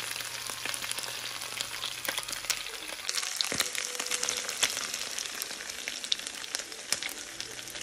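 Chicken wings and drumsticks frying in their own rendered fat in a skillet, no oil added: a steady sizzle with many scattered crackles and pops.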